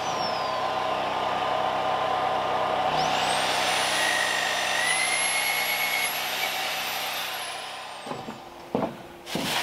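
Corded electric drill boring into a wooden board, its motor running steadily with the pitch rising about three seconds in. The sound fades out near the end, followed by a few sharp knocks.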